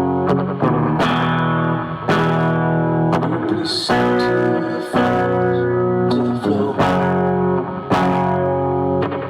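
Guitar playing chords, a new chord struck about once a second and left to ring.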